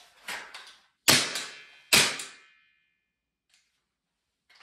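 A pistol being drawn from a hip holster and handled: a few light clicks, then two sharp clacks a little under a second apart, the second leaving a brief metallic ring.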